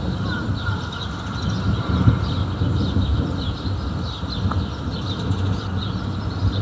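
Thunder rolling in a long, continuous low rumble that swells about two seconds in, with small birds chirping repeatedly over it.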